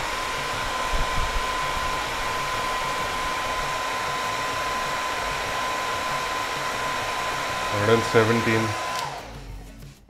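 Philips BHD006 1600-watt hair dryer running steadily: a constant rush of air with a thin, even whine. It stops about nine seconds in.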